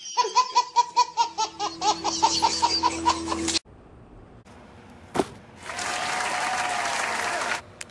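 Baby laughing hard in a quick run of giggles, about four a second, that cuts off suddenly after about three and a half seconds. After a click, a steady hiss lasts about two seconds near the end.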